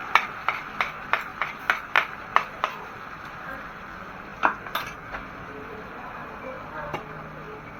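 Metal spatula striking and scraping a frying pan in quick stir-fry strokes, about three a second for a few seconds, then a few more knocks. A steady hiss of frying runs underneath.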